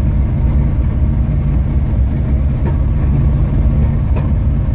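Hot-rod Chevy Nova engine running steadily with a loud, brutal exhaust note, freshly brought back to life after a no-start from sitting all winter.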